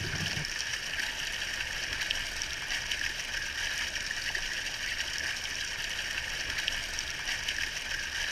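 Steady rushing, bubbling water, with faint scattered ticks and pops through it.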